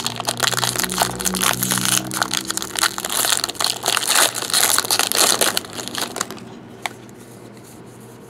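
Foil wrapper of a Topps Jumbo football card pack crinkling and crackling as it is torn open and crumpled by hand, dense for about six seconds, then dying down to a single small click.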